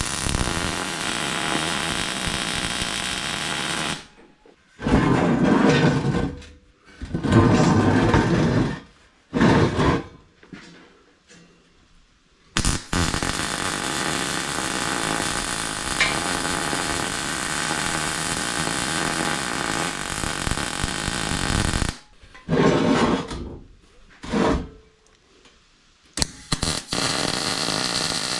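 Angle grinder running against steel tubing, smoothing fresh welds, in long steady passes with a few short, louder bursts and pauses between them.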